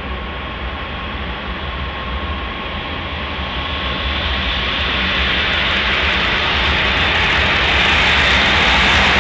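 Jet engines of a B-52H Stratofortress bomber (eight turbofans) running at high power as it rolls along the runway: a steady rushing jet noise over a low rumble, growing gradually louder.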